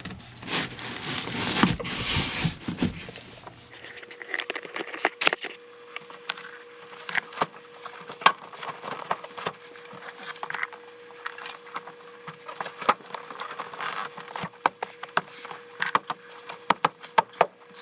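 Irregular clicks, taps and knocks, with rustling at first, as clips for a car's back seat are pushed into place by hand. A faint steady hum comes in about four seconds in.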